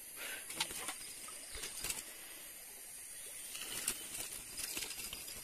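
Faint rustling with scattered light taps and clicks, over a steady high hiss.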